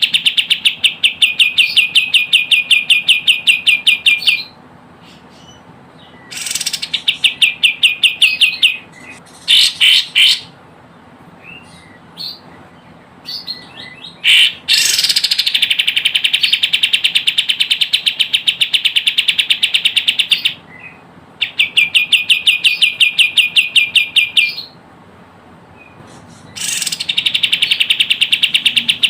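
Kapas tembak bird calling: long, fast trills of rapid high repeated notes, each trill lasting several seconds, broken by short pauses with a few brief chirps.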